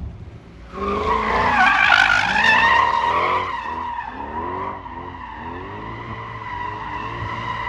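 Car drifting: the rear tyres squeal loudly as they spin and slide, and the engine revs rise and fall repeatedly under throttle. The squeal starts about a second in, is loudest soon after, then settles into a steadier squeal.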